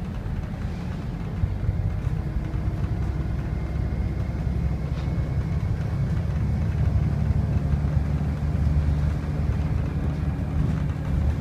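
Volvo B7RLE single-deck bus's six-cylinder diesel engine and ZF automatic gearbox heard from inside the passenger saloon while the bus drives along, a steady low drone that grows a little louder about halfway through.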